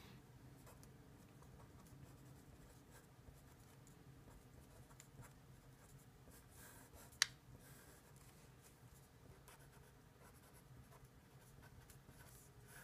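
Faint scratching of a felt-tip marker writing on paper, with one sharp click about seven seconds in.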